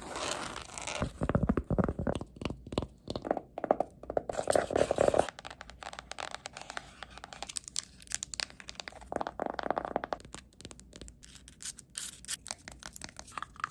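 Muffled ASMR tapping and scratching close to the microphone: fast, irregular taps with scratchy rustling. It turns quieter and lighter about five seconds in.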